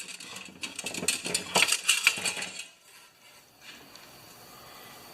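Small metal parts clinking and rattling while a lawn mower's recoil starter spring is handled: a quick run of sharp clinks over the first two and a half seconds, then only faint handling noise.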